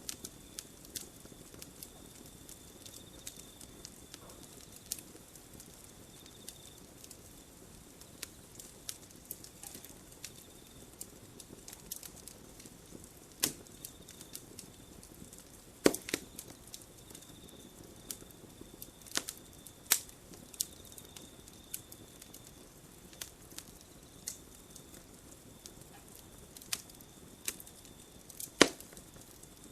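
Wood campfire crackling, with irregular sharp pops and snaps over a low steady hiss; the loudest pops come about halfway through and near the end. A faint high continuous tone comes and goes behind it.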